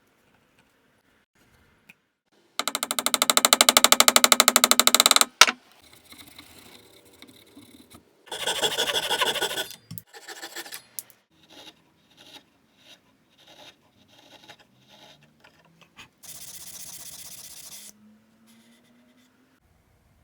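Woodworking shop sounds: a small power tool runs with a rapid pulsing buzz for about three seconds, followed by a shorter noisy burst of cutting or sanding, light knocks and clicks of handled wood, and another brief run of a pulsing machine sound near the end.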